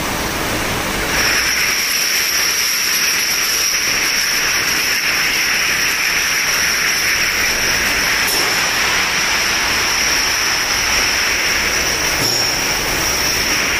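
Glass-bottle conveyor line running: slat conveyor and line machinery giving a steady mechanical hiss and whir with a high whine on top. The sound comes up about a second in as the line starts.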